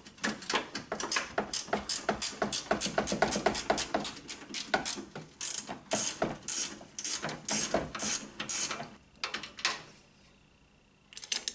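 Hand ratchet wrench clicking in quick runs as a bolt is loosened with back-and-forth strokes. It pauses briefly near the end, then clicks a few more times.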